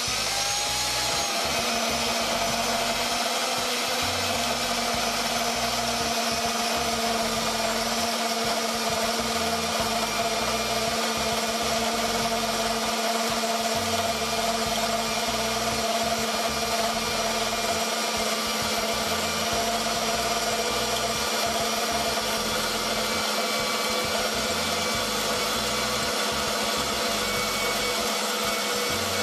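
Femi NG120 portable metal-cutting bandsaw running. Its motor whines up to speed at the start, then holds a steady hum with a whine over it.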